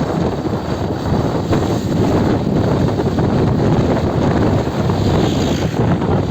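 Motorcycle riding: steady wind rush buffeting the microphone over the motorcycle's engine noise.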